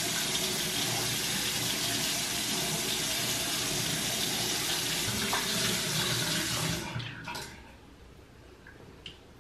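Bathroom sink tap running steadily into the basin. It starts abruptly and is shut off about seven seconds in.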